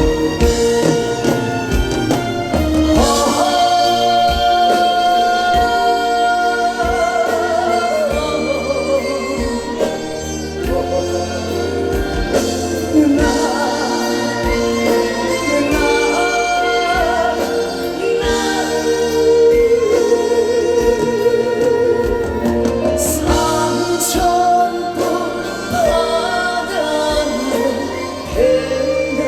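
Live trot song with band accompaniment and a steady beat, a melody held in long, wavering notes over it.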